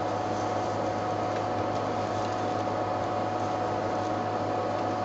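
Steady hum and hiss with a constant mid-pitched tone, unchanging throughout, with no distinct sounds standing out from it.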